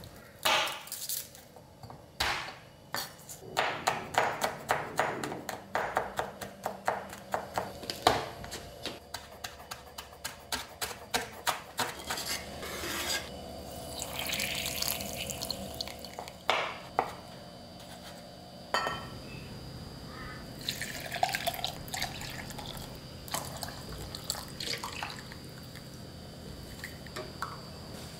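Kitchen prep sounds: a dense run of quick taps and clicks through the first dozen seconds, then water trickling and dripping as soaked shiitake mushrooms are squeezed out over a bowl of their soaking water, then lighter clinks of bowls and a glass measuring jug.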